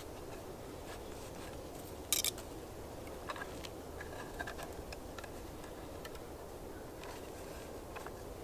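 Quiet handling noise as a short split log section is turned over in the hands: a brief scrape about two seconds in and a few faint clicks and taps, over a faint steady background hiss.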